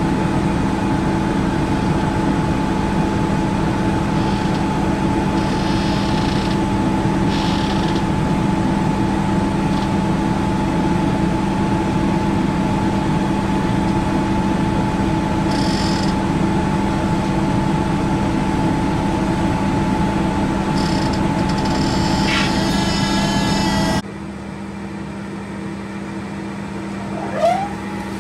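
Industrial machinery of a biomass gasifier plant running with a steady droning hum of several steady tones. About 24 seconds in, the sound cuts to a quieter hum of the same kind, and a brief high squeak rises near the end.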